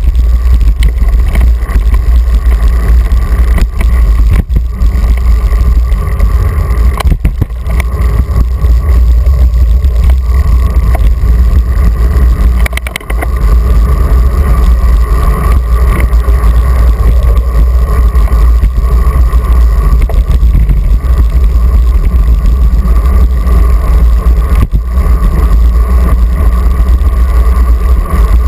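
Wind buffeting the microphone of a GoPro on a moving bicycle, a loud steady rumble, with a few brief knocks scattered through it.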